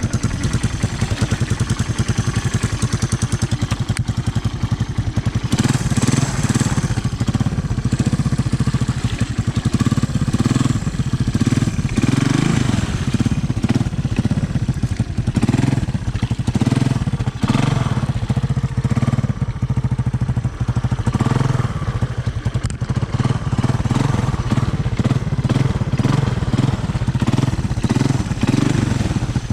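Honda ATC 200M three-wheeler's single-cylinder four-stroke engine running under load. From about six seconds in it gets louder, and its revs rise and fall repeatedly.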